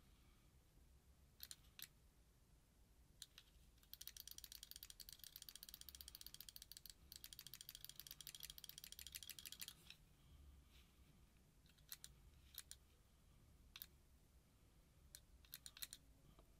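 Dangerous Power electronic paintball marker cycling on its board, a rapid run of mechanical clicks lasting about six seconds with a brief break partway, as the trigger is worked in play mode. A few single clicks come before and after it.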